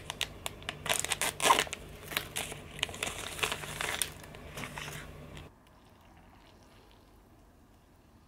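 Paper drip-coffee filter bag being handled and unfolded by hand: crinkling, crackling paper with quick sharp clicks. It stops abruptly about five and a half seconds in, leaving near silence.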